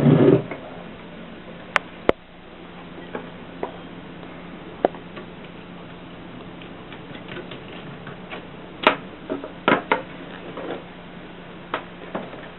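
Mercedes typewriter mechanism giving a louder clatter at the start, then a dozen or so separate sharp clicks at an uneven pace, some in quick pairs, over a steady low hum.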